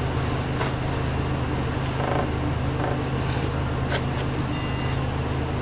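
City bus engine running with a steady low hum, heard from inside the cabin, with a few faint clicks and rattles.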